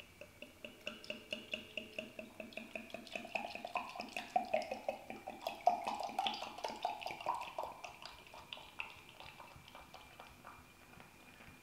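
Home-brewed ale glugging out of a swing-top bottle into a pint glass: an even run of gulps, about four to five a second, rising in pitch. The pour is loudest midway and tapers off near the end.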